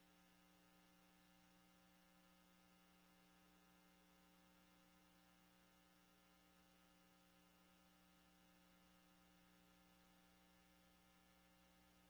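Near silence: only a faint, steady electrical mains hum.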